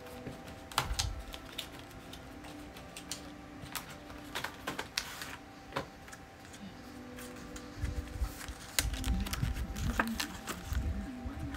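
Plastic packaging of a phone case being handled and opened: irregular sharp clicks and crinkles, with a few dull thumps in the second half.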